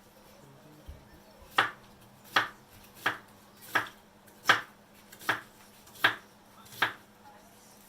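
Kitchen knife cutting through food onto a cutting board in slow, even strokes: eight chops about three-quarters of a second apart, starting about a second and a half in.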